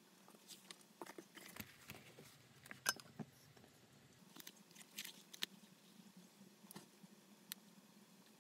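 Faint handling sounds of leatherwork: a small plastic tool pressing and scraping along the edge of a leather bag panel, leather shifting on a cutting mat, and scattered light clicks and taps, the sharpest about three seconds in.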